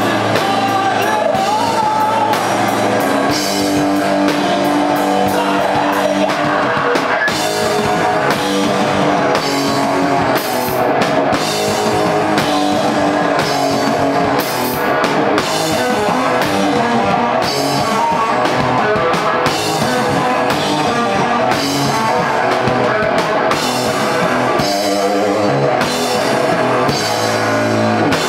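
Rock band playing live: electric guitar and drum kit at a steady beat, with singing.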